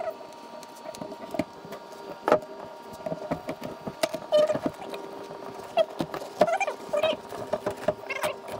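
Old carpet being peeled and scraped off the edge of a wooden boat panel: irregular tearing, scraping and short squeaks, over a steady hum.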